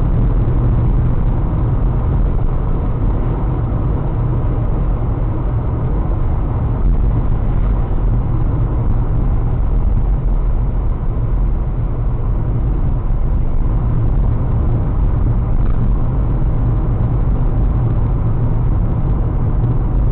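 Steady low rumble of a car's engine and road noise, picked up inside the cabin by a dashcam's microphone, with no sudden change.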